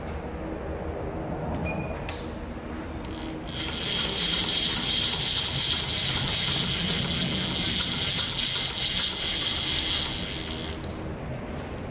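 Milling machine running steadily with a high whine for about seven seconds, after a couple of small clicks, while an edge finder is used to locate a hole.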